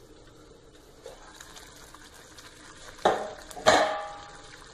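Steel plate used as a pan lid lifted off and set down, giving two sharp metal clanks about three seconds in; the second rings on briefly.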